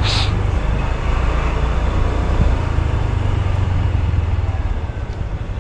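Road traffic noise heard while moving through city streets, with a steady low rumble of wind on the microphone and a short hiss right at the start.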